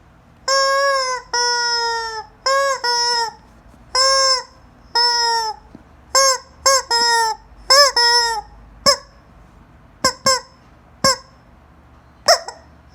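Squeaky rubber chicken toy squeezed over and over, giving about sixteen loud, pitched honks. The first few are long and drawn out; from about halfway through they become short, quick squeaks with longer gaps between them.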